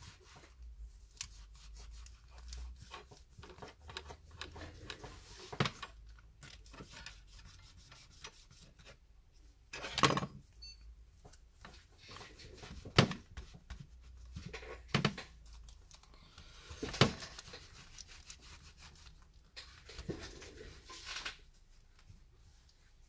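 Rubbing and scraping on a tablet's frame as old adhesive residue is cleaned off with alcohol, broken by several sharp taps or knocks.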